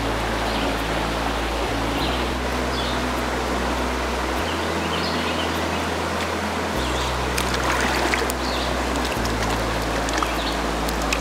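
A small rocky mountain stream running steadily. Background music with slow, sustained low notes that change every couple of seconds plays underneath.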